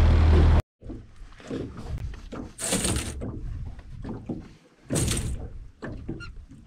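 A boat's outboard motor running steadily, cut off suddenly about half a second in. It is followed by scattered knocks, thunks and rustles inside an aluminium boat, with two short hissing bursts.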